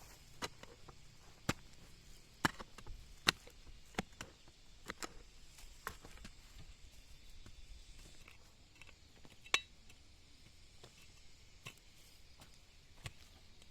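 A series of sharp, irregular knocks, like chopping strokes, about one a second at first and then only now and then.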